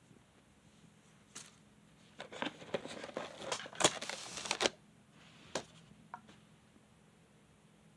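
Handling noise: a click, then about two and a half seconds of crackling and sharp clicks, and two last clicks.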